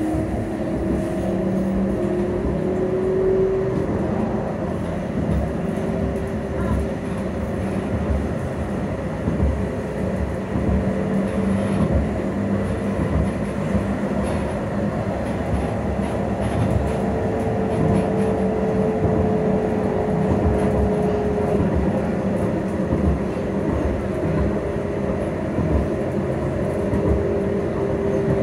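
Edinburgh tram (CAF Urbos 3) running, heard from inside the passenger saloon: a steady rumble of wheels on rail with the whine of the electric traction drive. The whine rises in pitch over the first few seconds as the tram gathers speed, then holds fairly steady with small shifts in pitch.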